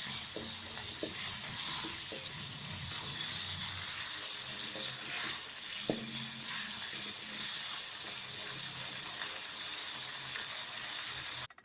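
Food sizzling steadily in an oiled frying pan during a stir-fry, with a few sharp clicks of the spatula against the pan; it cuts off suddenly near the end.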